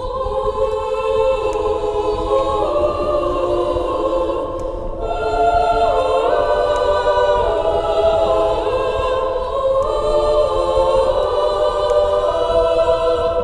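Several voices singing together as a small choir, holding long sustained chords whose notes shift every few seconds.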